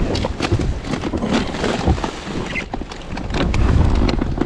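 Wind buffeting the microphone over choppy water against an inflatable boat, with many scattered short clicks and knocks. The wind rumble gusts louder near the end.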